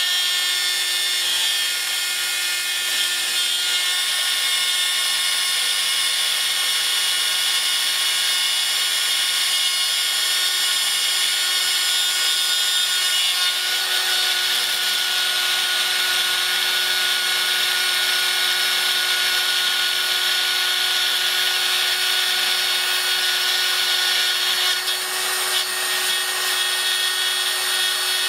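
Proxxon mains-powered rotary drill running steadily in a pantograph engraver, its small cutter milling nickel silver sheet: a constant motor whine under a hissing cutting noise that grows a little louder about halfway through.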